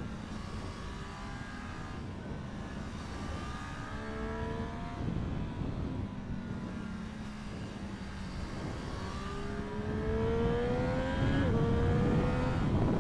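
Triumph Street Triple 765 RS inline three-cylinder engine accelerating hard on the road, its pitch climbing in runs, with a quick upshift drop near the end before it climbs again. It gets louder over the last few seconds.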